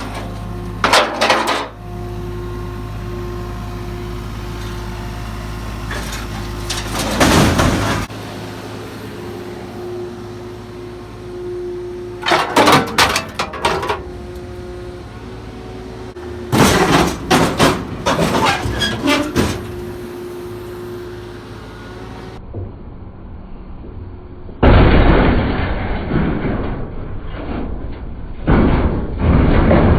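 Mini excavator engine running steadily while its bucket crushes scrap metal, with repeated loud bursts of metal banging and crunching. Near the end the crashes come closer together and louder.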